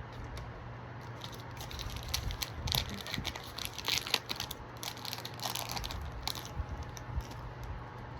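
Foil Pokémon booster pack wrapper crinkling and being torn open, a run of crackling rustles for several seconds.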